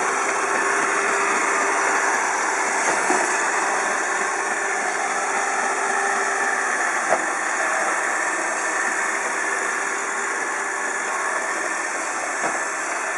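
iRobot Roomba 780 robot vacuum running: a steady whir of its vacuum motor and brushes, with a few short clicks.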